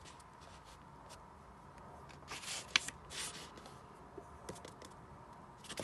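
Pages of a paperback manga volume being turned by hand: a few brief, soft paper rustles near the middle, with a sharp tick between them.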